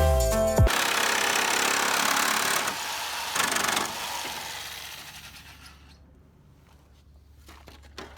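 A power tool running with a loud, noisy whirr for about five seconds, then winding down and fading out, with a few faint clicks near the end.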